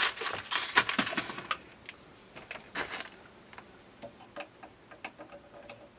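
Handling noises as a small brass shutoff valve is fitted onto PEX pipe: a dense patch of clicking and rustling in the first second and a half, another short burst about three seconds in, then scattered light ticks.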